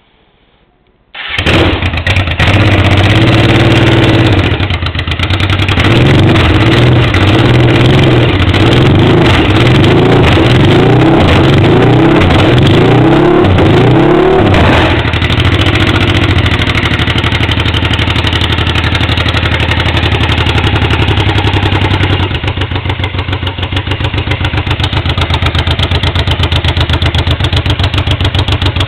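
Honda Africa Twin XRV750's V-twin engine, with no silencer, starts about a second in, is revved in a series of quick blips, then settles into a steady loud idle.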